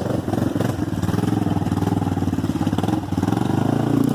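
ATV engine running steadily at low speed, with a fast even firing pulse.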